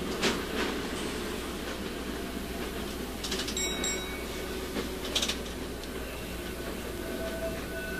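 Streetcar rolling along its rails: a steady running noise with a few brief clicks, and a short high-pitched squeal about halfway through.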